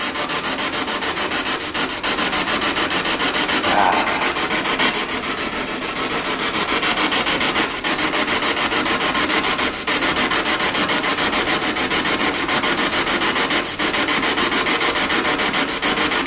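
Handheld spirit box sweeping rapidly through radio frequencies: a steady hiss of static chopped into fast, even pulses, with a brief louder snatch of sound about four seconds in.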